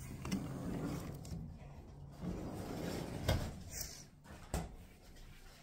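Rustling handling noise of a phone being carried, with a few sharp knocks and clicks of a door being opened and closed, the loudest knock about three seconds in.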